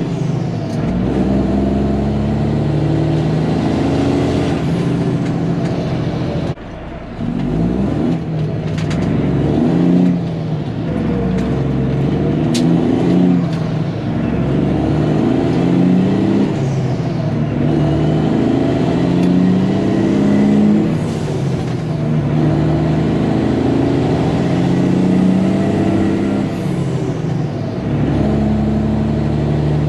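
Kenworth T800 diesel truck engine heard from inside the cab while driving, pulling up through the gears: the engine note climbs and drops again and again as the driver shifts, with a short break in the sound about six and a half seconds in.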